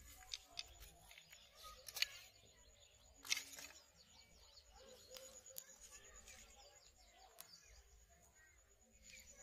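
Quiet outdoor background with small handling clicks and rustles, two sharper clicks about two and three seconds in, and faint bird chirps.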